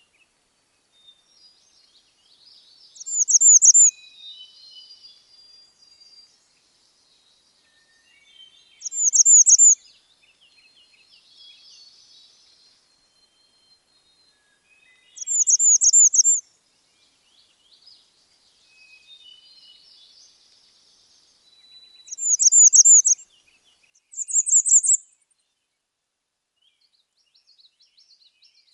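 Bay-breasted Warbler singing its extremely high-pitched, squeaky song: five short songs of about a second each, with fainter chirps of other birds in between.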